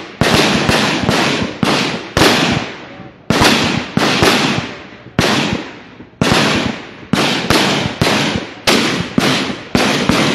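Rifle fire from several AK-pattern rifles shot single rounds at a time, about nineteen loud, sharp shots at uneven intervals, often two or three within a second, each trailing off in an echo.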